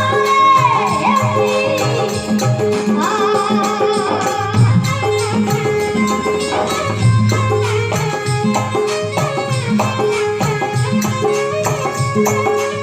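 Instrumental passage of Rajasthani devotional folk music: a melody line played over a steady, even rhythm of hand drum and rattle-like percussion.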